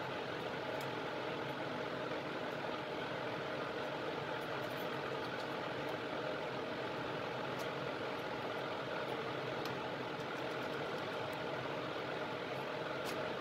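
Steady whir of a laminar-flow clean-bench blower fan, with a few faint small ticks from handling.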